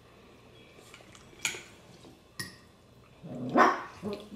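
Eating sounds at a table: a couple of light clicks of chopsticks and a fork against bowls, then a louder slurp of fettuccine noodles about three and a half seconds in.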